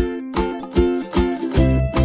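Upbeat background music of plucked-string notes on a steady beat; a bass part comes in near the end.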